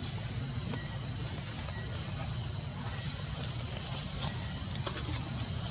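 Insects droning in one steady, unbroken high-pitched buzz.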